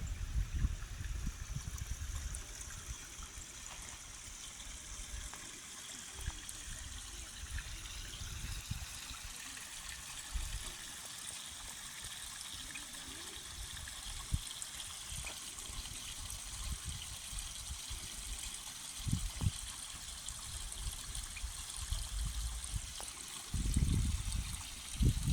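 Steady trickle of running water, like a small stream, with a few short low rumbles, the strongest near the end.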